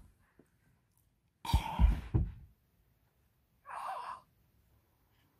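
A man's theatrical dying noises: a short burst of choked gasps about a second and a half in, then a single breathy sigh about four seconds in.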